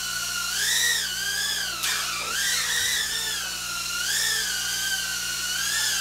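Tiny whoop FPV drone's ducted propellers and motors in flight, a high whine that wavers up and down in pitch as the throttle changes. About two seconds in there is a brief knock, and the whine dips in pitch and then climbs again.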